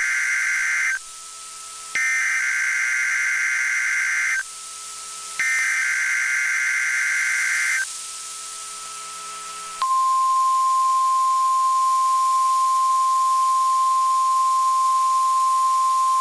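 NOAA Weather Radio test alert: three bursts of screechy digital SAME header data, each about two and a half seconds long with short gaps between them. About ten seconds in, the steady 1050 Hz warning alarm tone starts and holds on one pitch.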